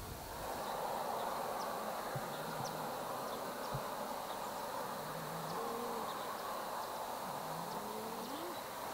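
A few low, soft hooting calls spread through, the last one rising in pitch near the end, over a steady hiss.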